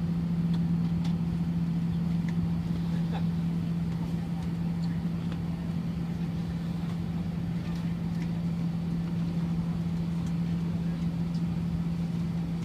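Steady low-pitched hum and rumble inside a parked airliner's cabin, one constant droning tone with no change in pitch or level, and a few faint clicks.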